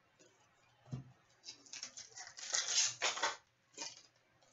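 Trading cards being handled and flipped through by hand: a soft knock about a second in, then a run of short dry sliding and rustling sounds.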